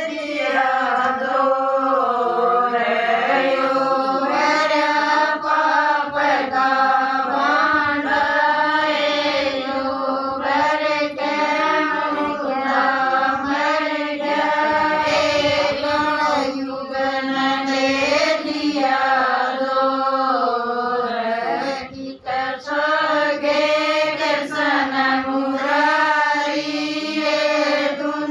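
Women singing a Haryanvi devotional bhajan to Krishna, a steady chant-like melody with a short break about three quarters of the way through.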